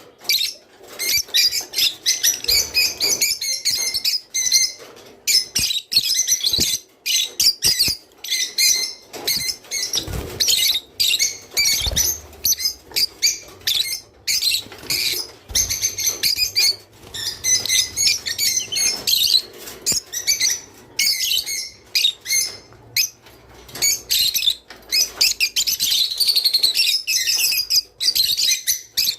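A group of rosy-faced lovebirds chattering: rapid, shrill chirps that come in quick runs with brief pauses between them.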